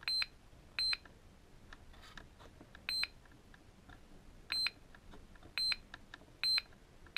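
HobbyKing ECO6 balance charger's key beeper giving six short, high beeps at uneven intervals as its buttons are pressed, with faint clicks between the beeps.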